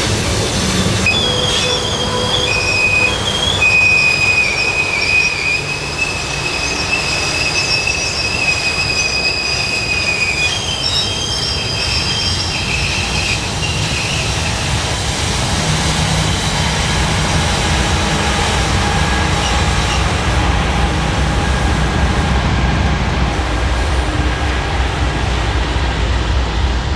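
Freight train rolling past, its wheels squealing against the rails in high, steady, shifting tones that die away about halfway through, over the low rumble of the passing cars.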